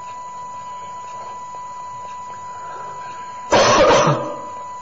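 A steady high-pitched whine at one pitch, with a faint hiss behind it, running under the recording. About three and a half seconds in, a short, loud burst of sound breaks in.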